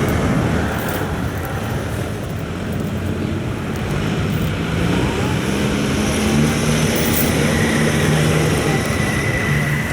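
Combine harvester's diesel engine running hard as it pulls a loaded rice-hauling machine out of deep mud, its hum rising and steadying about halfway through as it takes the load.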